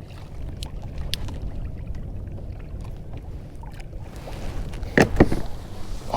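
Fishing kayak on open water: a steady low wash of wind and water with scattered small clicks, and two loud sharp knocks close together about five seconds in.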